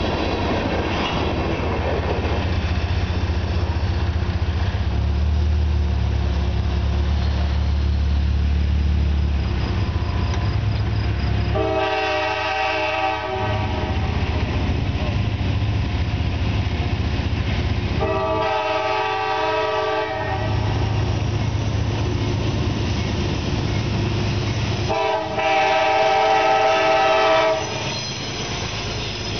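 Freight cars rumble over the crossing at first. An approaching Metro-North passenger train then sounds its horn for the crossing in three long blasts, the last one loudest and ending just before the train reaches the crossing.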